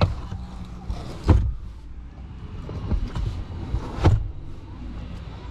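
Cabin sound of a CAOA Chery Tiggo 8's 1.6 petrol engine and tyres on the move, a steady low rumble. Two sharp knocks cut through it, one about a second in and one about four seconds in.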